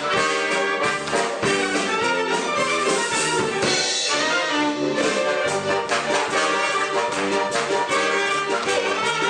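Orchestral music from a Soviet operetta, with brass to the fore.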